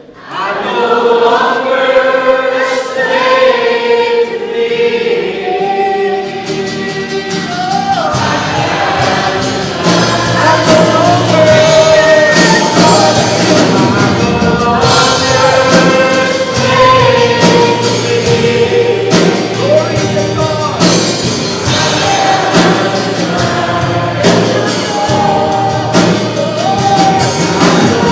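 A group of voices singing a gospel hymn together. An instrumental accompaniment with a bass line and percussion comes in about eight seconds in.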